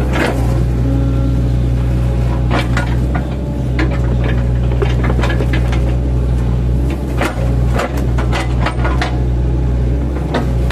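Mini excavator's diesel engine running steadily under load while its bucket chops up a felled oil palm trunk, with repeated sharp cracks and knocks as the trunk is split.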